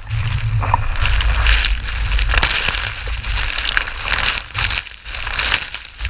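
Waterfall pouring down close by: loud, rough rushing noise, with wind and spray buffeting the camera's microphone into an uneven rumble and crackle.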